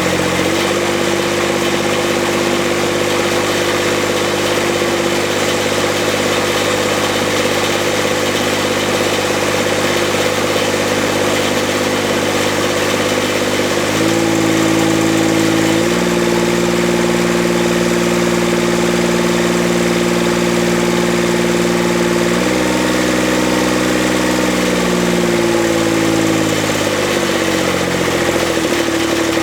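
Kubota D722 three-cylinder diesel engine of a Grasshopper mower running steadily after an injector pump leak repair. Its speed steps up about halfway through, then eases back down near the end.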